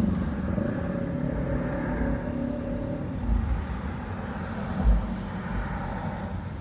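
Distant rumble from a busy industrial yard: a steady drone of heavy machinery and truck engines, with two dull low thumps, about three and about five seconds in.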